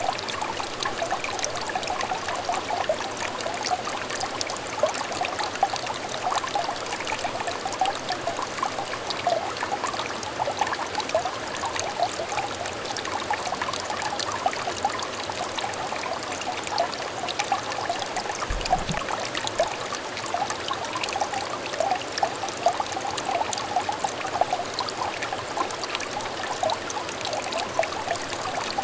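A small trickle of water in a clear stream, running and splashing steadily with a continuous bubbly babble.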